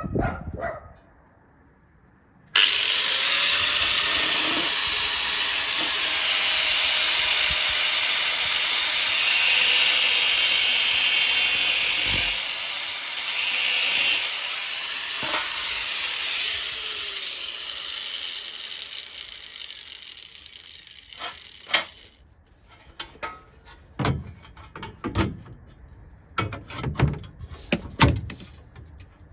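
Angle grinder with a thin cutting disc slitting a steel body panel. It starts suddenly about two and a half seconds in, cuts steadily for about ten seconds, then winds down over several seconds. Several sharp knocks and clatter of metal follow near the end.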